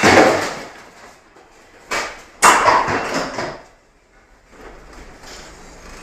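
Heavy bangs and crashes of a ship pounding in storm seas: one at the start, then a short bang about two seconds in and a bigger crash just after it, each fading over about a second, followed by a steady lower rumble.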